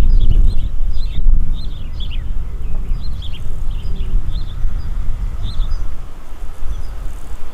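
Small birds chirping over and over in short, high notes, over a loud, uneven low rumble.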